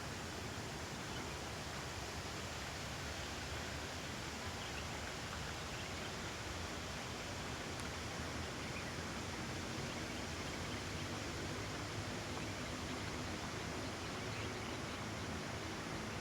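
Steady outdoor nature ambience: an even rushing noise that holds at one level throughout.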